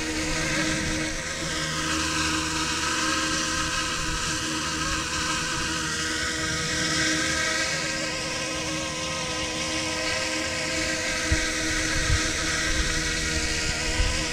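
YXZNRC F09-S scale UH-60 Jayhawk RC helicopter flying low: a steady electric motor and rotor whine whose higher pitch slowly rises and falls as it manoeuvres. A few low thumps near the end.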